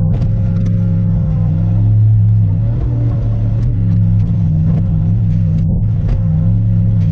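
Diesel engine of a wheeled excavator running steadily under working load, swelling slightly about two seconds in, with a few faint clicks.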